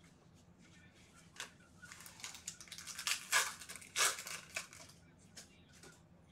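A foil trading-card pack torn open by hand, its wrapper crinkling in a run of crackling rustles that is loudest about three to four seconds in.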